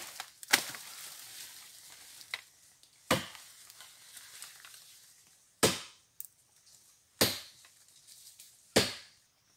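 Footsteps crunching through dry leaves, twigs and undergrowth: five crackling crunches a second or two apart.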